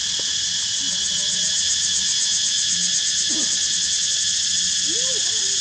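Steady, high-pitched chorus of insects, with a fast, even pulsing trill riding on top for a few seconds. A couple of faint, short, bending calls come through underneath, about three and five seconds in.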